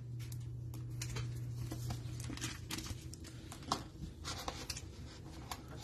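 Trading cards and rigid plastic toploaders being handled by gloved hands, a card being cased: faint scattered clicks and rustles over a steady low hum.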